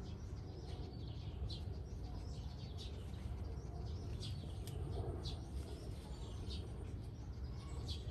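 Small birds chirping: short, high calls at irregular intervals over a steady low rumble.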